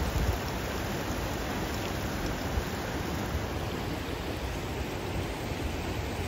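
Steady rushing noise with an unsteady low rumble underneath.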